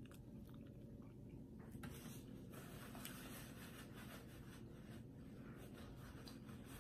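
Faint rustling and rubbing of a paper napkin as hands are wiped with it, heaviest from about halfway in.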